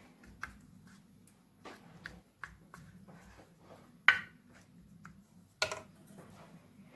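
Wooden spoon knocking and scraping against cookware as meat sauce is spread into a metal lasagna dish and béchamel is stirred in a steel pot: a run of light clicks and taps, with two sharper knocks about four and five and a half seconds in, over a faint steady low hum.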